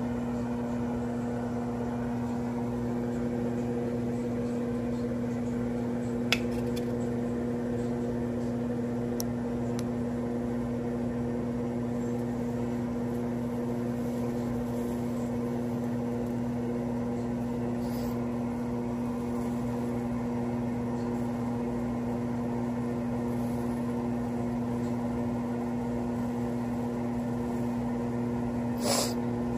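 A steady electric motor hum with a few fixed pitches, like a kitchen appliance running. One sharp click comes about six seconds in, and a short clatter near the end.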